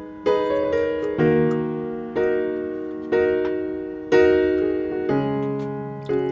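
Background music: a piano playing slow sustained chords, one struck about every second and fading away before the next.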